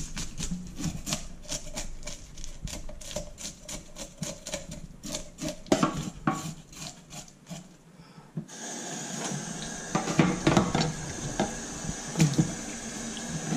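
A knife scraping the scales off a salmon in quick, even strokes, about four a second, against a plastic cutting board in a stainless-steel sink. Past the middle the scraping stops and the tap is turned on, water running into the sink with a few knocks of things being rinsed.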